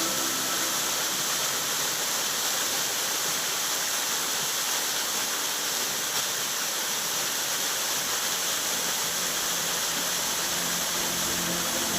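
Steady rush of running water, a waterfall or stream, with the hiss strongest in the high range.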